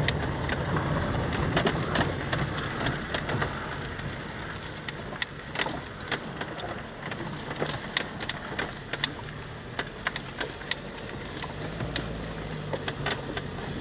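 Car driving over a rough gravel track, heard from inside the cabin: a steady low engine and tyre rumble with many sharp ticks and rattles scattered through it from the rough surface.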